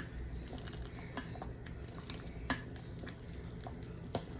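Metal spoon stirring stewed beans in a stainless-steel saucepan, clinking and scraping against the pot with a few sharp taps, over a low steady hum.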